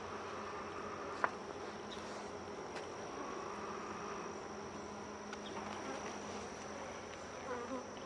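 Swarm of honeybees buzzing in a steady, dense hum around an opened hive during a frame inspection. A single sharp click sounds about a second in.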